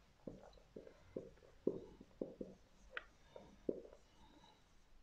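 Marker pen writing on a whiteboard: a faint string of short strokes and taps, two or three a second, with a brief squeak about three seconds in.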